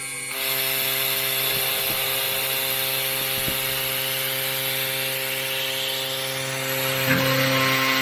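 CNC machine spindle running at speed and milling a plate: a steady whine of several fixed tones over a loud cutting noise. The noise comes in strongly under half a second in and gets a little louder about seven seconds in.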